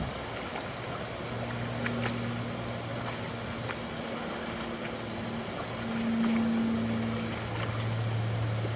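Flies buzzing, a steady low hum that grows louder for a second or two about six seconds in, over the even rush of running creek water.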